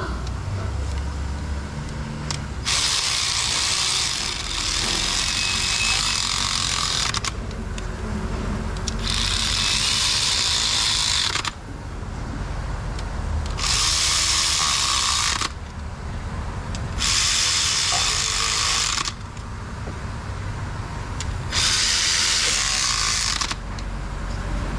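Ratchet clicking in five bursts of a few seconds each, with short pauses between them, as rocker arm bolts on a GM 3.5 L V6 cylinder head are run down before final torque.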